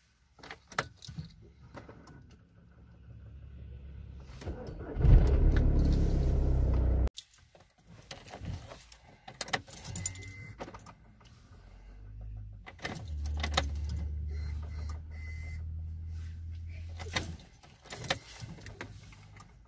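Keys jangling and clicking in the ignition of a Skoda Octavia II 1.9 TDI while the ignition is switched on. A loud low rumble comes about five seconds in and cuts off abruptly two seconds later. A steady low hum runs for a few seconds later on, while the engine is still not running.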